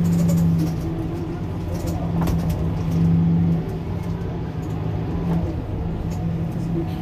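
Mercedes-Benz Citaro C2 Hybrid city bus's engine idling while stopped, a steady low hum that swells slightly at the start and again about three seconds in.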